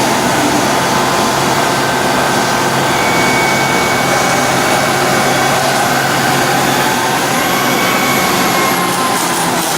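Lagun-Republic FTV-2 vertical milling machine running under power, its 3 HP motor and spindle drive making a steady mechanical hum and whine. About six seconds in, a whine rises in pitch, as when the variable spindle speed is turned up.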